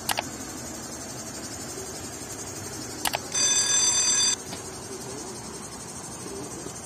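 Subscribe-button sound effects over steady background noise: a mouse click at the start, another click about three seconds in, then a notification bell ringing for about a second.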